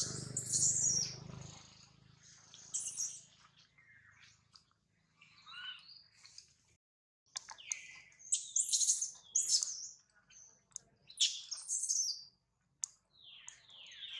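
Short, high-pitched chirping and squeaking calls in clusters, some sliding down in pitch, with short gaps between them.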